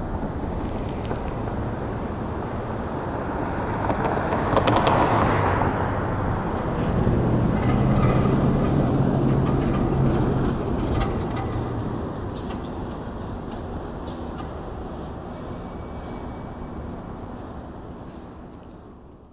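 City street traffic heard from a moving e-scooter: a steady rush of road noise with a heavy road vehicle's engine swelling up as it passes close, loudest about five seconds in and again around eight seconds. The sound fades away right at the end.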